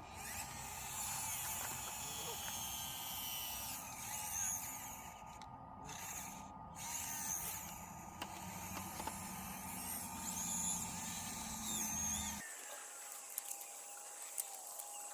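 Small electric motors and gearboxes of a radio-controlled Bruder CAT toy excavator whirring steadily as it digs in gravel, cutting off suddenly near the end.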